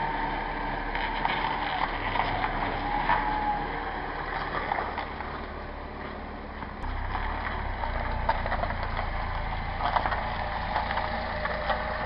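Car engine running as the car reverses out of a garage. About seven seconds in, the low engine sound steps up and gets louder, with scattered clicks and knocks throughout.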